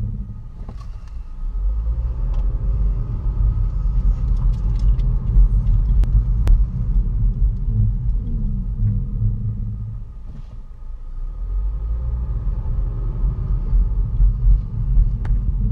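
A 2012 Kia Rio SX GDI making an unexplained low-pitched noise that appears once the car is warmed up; the brakes have been checked and ruled out. The noise is continuous, growing louder and easing off, with a dip about a third of the way through, and a faint steady high tone runs alongside it.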